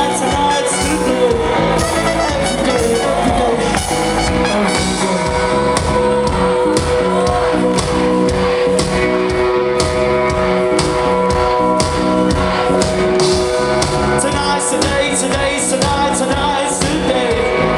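Live indie rock band playing a song, with a steady drumbeat, sustained instrument notes and a singer's voice at times.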